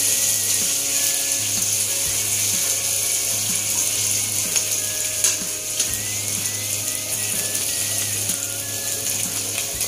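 Pork, onion, carrot and bell pepper pieces sizzling as they fry in a nonstick wok, with small crackles and pops through a steady hiss. A constant low hum runs underneath.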